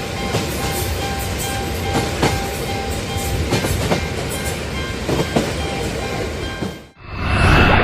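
Train passing, its wheels clattering over the rails, with a level-crossing warning bell ringing in a steady repeating pattern over it. The sound cuts off abruptly near the end and a different, louder sound starts.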